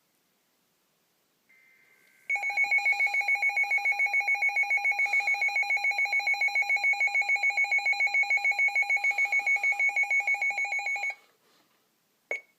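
Emergency weather alert alarm: a loud, rapidly pulsing two-pitch electronic beep that starts a couple of seconds in, runs for about nine seconds and cuts off, announcing the next warning. A short electronic chirp follows near the end.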